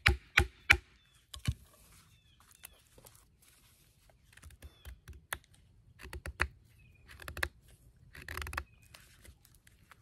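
Terra Knives Forester fixed-blade knife chopping and whittling a wooden stick. A few sharp knocks come in the first second and once more shortly after, then scattered short scraping cuts as the blade shaves the wood.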